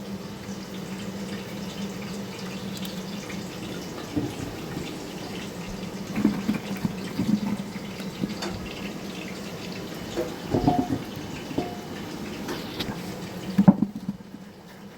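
Tap water running into a sink while potatoes are rubbed and rolled under it to wash off the dirt, with scattered knocks. The water stops near the end.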